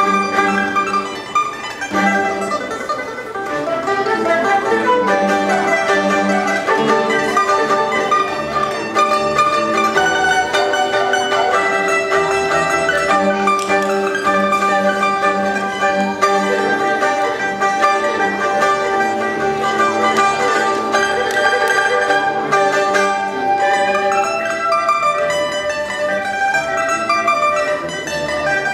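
Chinese traditional plucked-string music: a liuqin carrying the melody with pipa and ruan accompanying, a run of quick plucked notes with some held notes over them.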